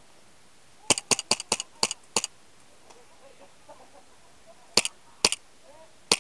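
Sharp snaps of airsoft guns firing: a quick run of about six about a second in, then three single snaps spaced half a second to a second apart near the end.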